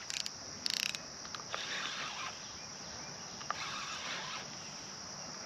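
Insects calling steadily in a high thin band, with a few brief rustles or clicks of handling noise in the first second.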